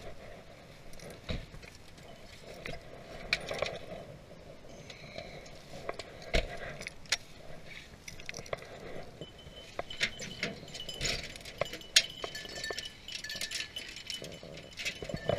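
Small metal objects jingling and clinking, with scattered sharp snaps and crackles throughout.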